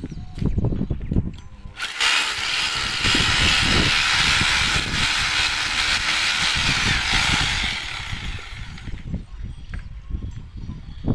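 A power drill runs steadily for about six seconds, starting about two seconds in and winding down near the end, with knocks and handling thumps before and after.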